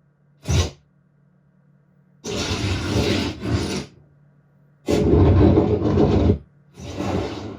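Film soundtrack effects played through four in-ceiling home-theater speakers: a run of harsh, rasping bursts of noise. A short one comes about half a second in, then three longer ones, the loudest a little past the middle.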